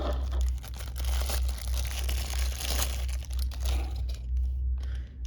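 Packaging crinkling and rustling with many small crackles as a padlock and its key are handled out of their box, dying down near the end, over a steady low hum.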